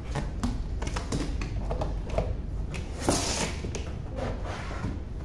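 Cardboard cartons being handled: scattered taps, clicks and rustles as an outer box is slid off an inner one, with a louder scraping rush of cardboard on cardboard about three seconds in.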